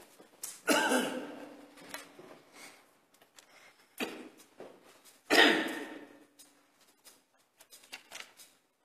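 Small noises from a church choir and congregation in a quiet pause: a few short, sharp sounds, the strongest about a second in and just after five seconds, with faint shuffles and ticks between them.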